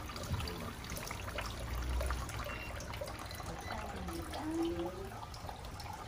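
Small decorative fountain steadily trickling, its water pouring from a pump-shaped spout into a glazed ceramic jar.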